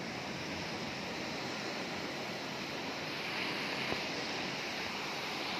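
Heavy rain pouring in a windstorm: a steady, dense hiss.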